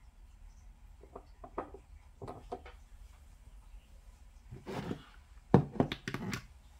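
Handling noises on a tabletop: a few light clicks, a short rustle, then a cluster of sharp knocks about five and a half seconds in, the first the loudest, as a plastic UV/LED nail lamp is handled and its power button pressed.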